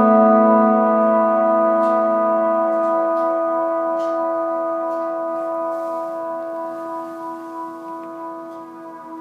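Clean electric guitar chord (Gibson ES-335 through a Swart AST amp) washed in the Mr. Black Supermoon's modulated reverb on a mild sway setting. It is a long, held reverb tail that slowly fades, with a few faint ticks along the way.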